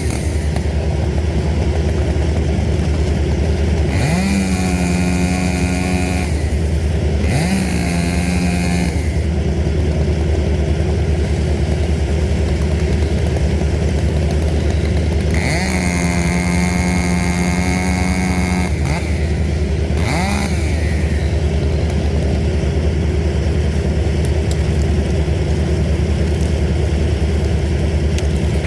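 Steady low drone of a heavy engine running, with a chainsaw throttled up to full speed in several separate bursts of a few seconds each: the pitch rises quickly, holds high, then cuts off.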